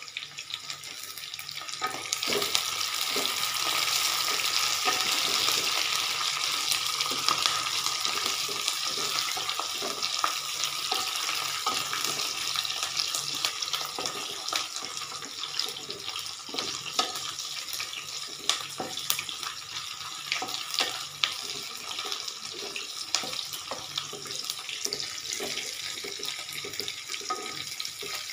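Sliced onions, green chillies and capsicum sizzling in hot oil in a kadhai, the hiss swelling about two seconds in and then running steadily. A slotted spatula scrapes and clicks against the pan as the vegetables are stirred.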